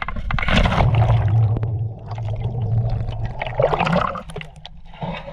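Seawater splashing and gurgling around an action camera as it dips into the sea and bobs at the surface. It is loudest in the first two seconds, with a second surge about four seconds in.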